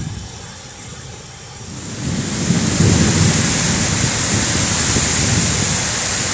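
Heavy rainstorm with strong wind lashing the trees: a steady rushing hiss of rain and wind swells up about two seconds in and holds, with gusts buffeting the microphone underneath.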